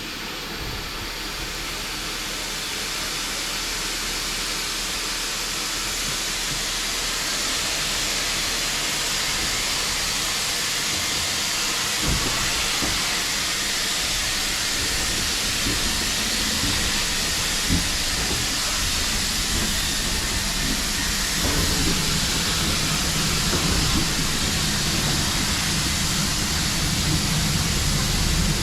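Steam locomotive letting off steam with a steady, loud hiss that grows gradually louder, with a few short knocks and a low rumble building near the end.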